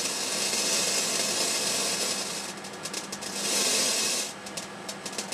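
Radiation detector pulses played through an audio amplifier, counting X-rays from a glass-window X-ray tube run at about 6 kV. A dense hissing crackle thins to separate clicks about two and a half seconds in, surges again briefly, then falls back to sparse clicks near the end.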